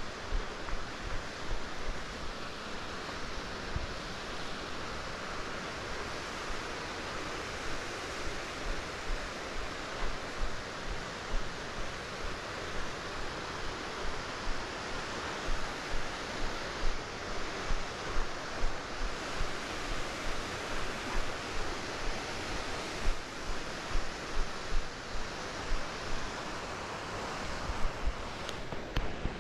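Steady rushing of wind through the mountain canyon, with gusts buffeting the microphone in frequent low thumps.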